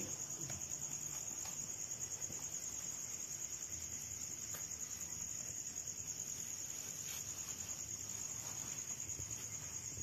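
A chorus of night insects trilling steadily at a high pitch.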